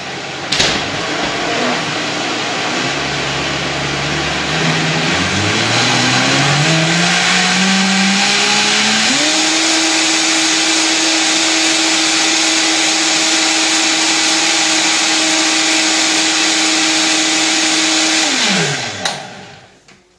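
Countertop blender motor running on a thick puréed food mix with cooked quinoa just added. Its pitch climbs in steps over the first several seconds as the speed is turned up, then it runs steadily at high speed, and near the end it is switched off and winds down.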